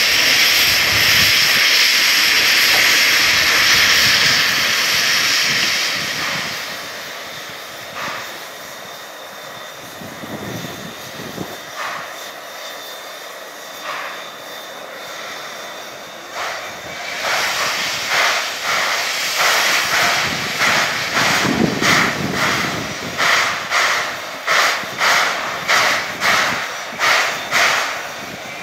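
C11 and C10 tank steam locomotives: a loud steady hiss of released steam for the first six seconds, a few knocks, then exhaust chuffs starting up about seventeen seconds in and settling into regular beats, about three every two seconds, as the coupled engines get moving.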